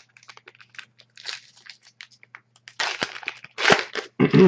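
Trading cards and a foil pack wrapper being handled: scattered small clicks and crinkles, then two louder crinkling rustles about three seconds in.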